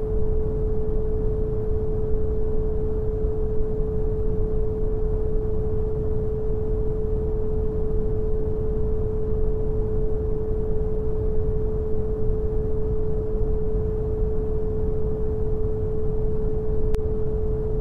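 Synthetic brown noise, a deep even hiss, with a pure steady 432 Hz tone held over it without change.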